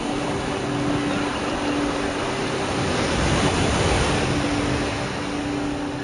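Ocean surf breaking and washing up the shore, a rushing noise that swells to its loudest about three to four seconds in, over background music with held notes.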